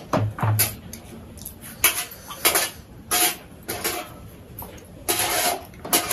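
Spoons clinking and scraping on steel plates during a meal, in short irregular clatters, with a plastic water bottle being handled and drunk from.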